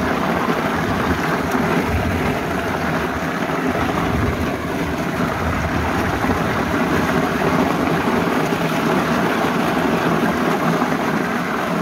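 Meltem M-60 walnut hulling machine running: its 550 W electric motor turns the saw-lined drum while walnuts tumble inside under running water, a steady churning noise.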